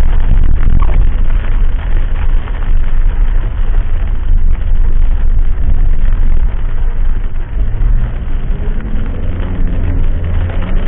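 Vehicle driving on the road as heard from the cab: a loud, steady rumble of road and wind noise, with the engine's pitch rising gradually near the end as it speeds up.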